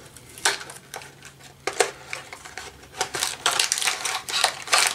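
Cardboard candy box being torn open by hand and the plastic bag inside pulled out: irregular tearing, crinkling and rustling of packaging with scattered clicks.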